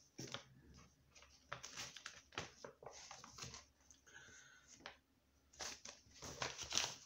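Faint, scattered rustles and light clicks of product packaging being handled, with a busier burst of handling noise near the end.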